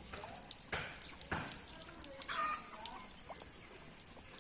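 Water splashing out of a tubewell in uneven gushes, two stronger ones about a second in. A short chicken call a little after two seconds in.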